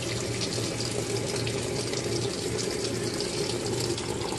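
Giantex compact portable washing machine filling: water running steadily into the tub through the inlet, with a low steady hum underneath.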